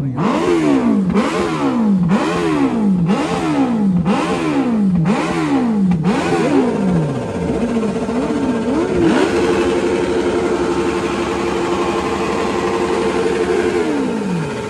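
Kawasaki motorcycle engine revved in seven quick blips about once a second. After a few smaller blips it is held at steady high revs for about four seconds, then the revs drop near the end.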